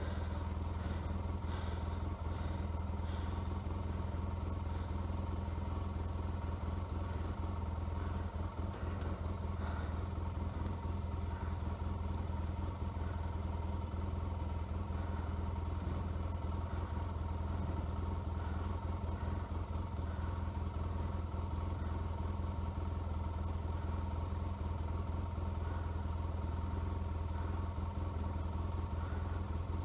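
A 2013 Polaris RZR 800 LE's twin-cylinder engine idling steadily, heard from the driver's seat.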